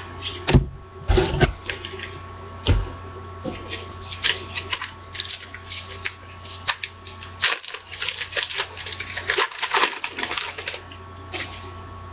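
Trading card pack wrapper being crinkled and torn open by hand, a dense run of irregular crackles and clicks, with cards slid and shuffled between the fingers. A few dull handling bumps come in the first few seconds.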